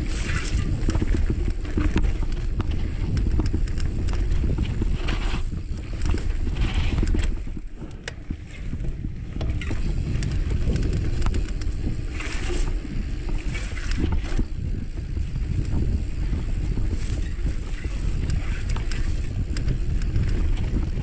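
Wind buffeting the microphone over the rumble of a mountain bike's tyres on a dry dirt trail, with scattered sharp clicks and rattles from the bike. It turns quieter for a moment about eight seconds in.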